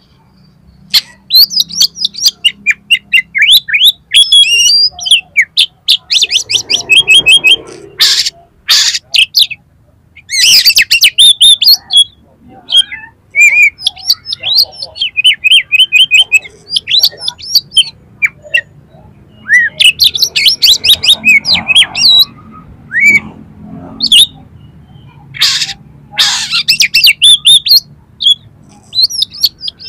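Oriental magpie-robin singing loudly: fast runs of quick, sharp whistled notes in varied phrases, broken several times by short harsh, noisy calls.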